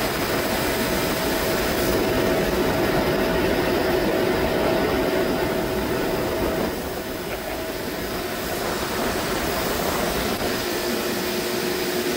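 Chiller running under test after a micro-channel coil repair: its hermetic refrigeration compressors and equipment making a steady, loud machine noise with a faint steady hum through it.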